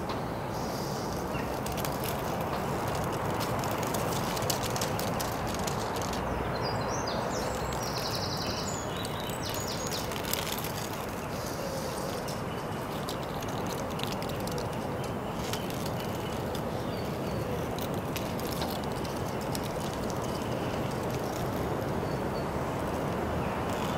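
Outdoor ambience: a steady rush of background noise with faint bird chirps and a few light clicks.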